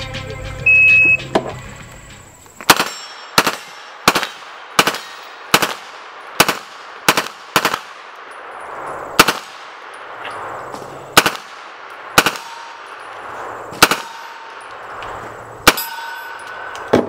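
A shot timer beeps once, then a Colt 9mm submachine gun fires about fourteen single shots: a quick string roughly 0.7 s apart, then slower, more deliberate shots one to two seconds apart.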